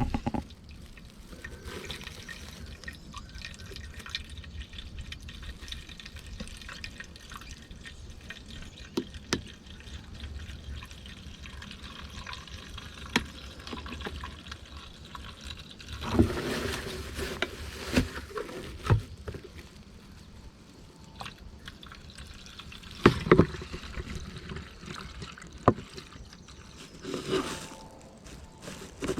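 Two-stroke fuel mix being poured into a brushcutter's fuel tank, a trickling liquid sound, with scattered knocks and clatters of handling.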